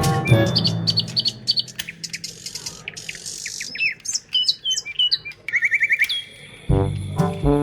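Birds chirping and twittering in quick, high, sliding calls, with a fast trill a little past the middle. A car engine fades out in the first second, and music comes in near the end.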